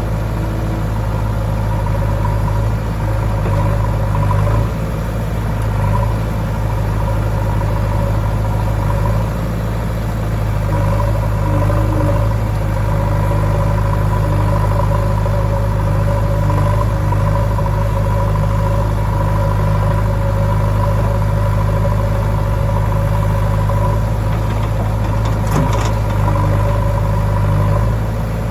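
Diesel engines of a JCB 3DX backhoe loader and a John Deere 5050D tractor running steadily. There is a brief clatter near the end.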